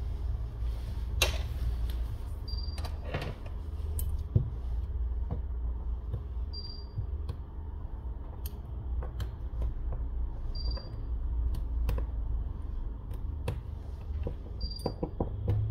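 Small, light clicks and taps of metal tweezers working against a smartphone's frame and internal parts, over a steady low hum. A short, high beep repeats about every four seconds.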